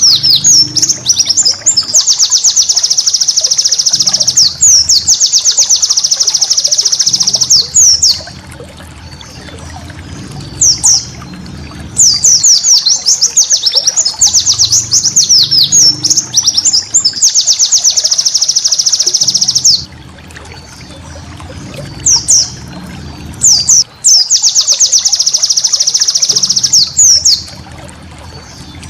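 White-eye (pleci) singing in long bouts of rapid, high twittering chatter (ngeriwik), each a few seconds long. Between the bouts come short gaps with a few single calls.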